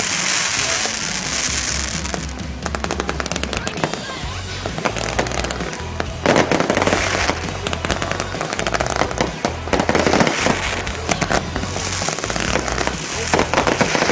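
Fireworks display: aerial shells going off in repeated bursts with dense crackling, the loudest bursts coming about six, ten and thirteen and a half seconds in.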